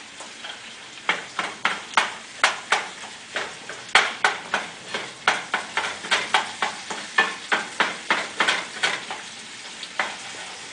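Sausage and diced onion frying in a pan with a steady sizzle, stirred with a utensil that scrapes the pan about three times a second; the stirring stops near the end and the sizzle goes on.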